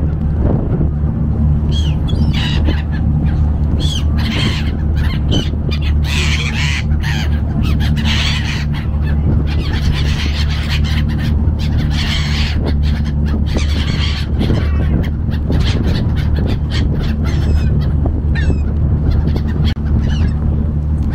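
Gulls calling repeatedly around a ferry, over the ferry engine's steady low drone.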